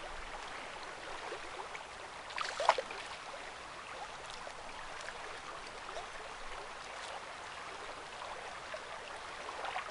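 River water running steadily over riffles, a continuous rushing wash. A single short, sharp, louder sound cuts in about two and a half seconds in.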